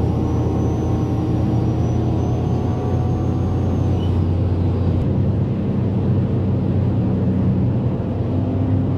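Turbocharged Ford Mustang GT's 5.0 V8 running hard at high speed: a steady low engine drone with road rumble and a thin high whine that falls away about four seconds in. The engine note shifts with a click about five seconds in.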